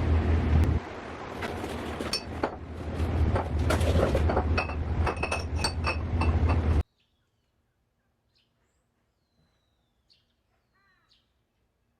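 Glass or dishes clinking repeatedly over a steady low rumble, which cuts off abruptly about seven seconds in. Then a few faint bird chirps.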